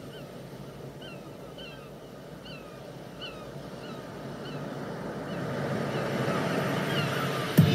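Short bird-like chirps, each a quick rise and fall in pitch, come irregularly about once a second over a wash of noise that grows steadily louder. Just before the end, a loud music entry cuts in suddenly.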